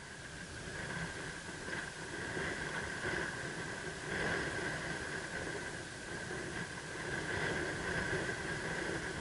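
Steady rushing noise of wind and surf on an open reef flat, swelling and easing every few seconds, with a thin steady whine running underneath.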